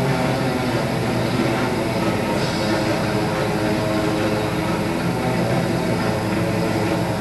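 Freestyle music played over the arena's loudspeakers: a sustained, droning passage of held notes, heard steady and without a beat.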